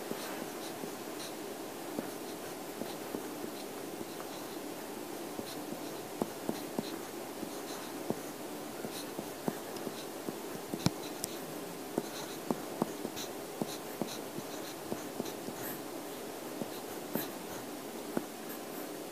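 Pen writing on paper: irregular scratching strokes and small taps and clicks, over a steady low room hum.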